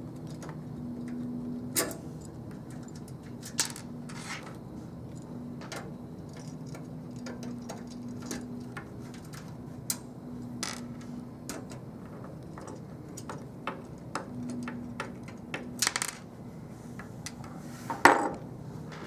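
Screwdriver backing out the power supply's mounting screws from a metal PC case: scattered metallic clicks and clinks, with a louder knock near the end.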